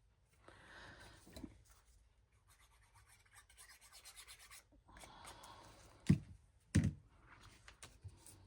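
Ink-blending sponge rubbed in strokes across paper, a dry scuffing in several stretches, with two thumps about half a second apart near the end.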